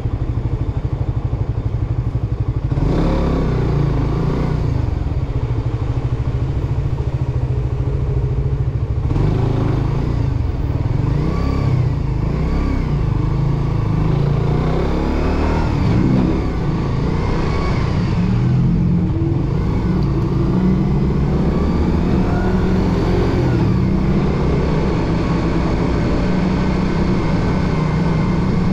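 Suzuki GSX-R150's single-cylinder four-stroke engine, heard from the bike: a steady low note for the first few seconds, then pulling away, its pitch rising and falling several times as it accelerates and eases off, over road and wind noise.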